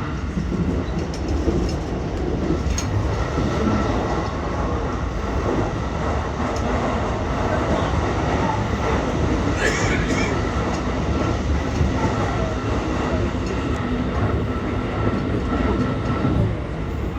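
JR West 223 series 2000-subseries electric train running at speed, heard from inside the car: a steady rumble of wheels on rail with rail-joint clatter and a faint steady tone, with one brief sharp noise about ten seconds in.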